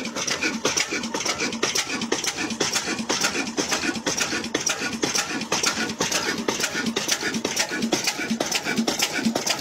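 Old stationary diesel engine with a large flywheel running steadily, its knocks and exhaust chuffs coming in a fast, even rhythm of several a second.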